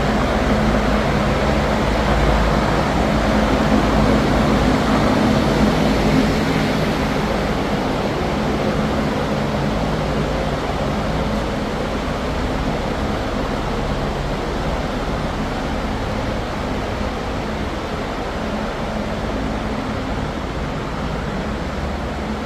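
A fan motor running steadily, with a low hum under a rush of air; it is a little louder for the first few seconds.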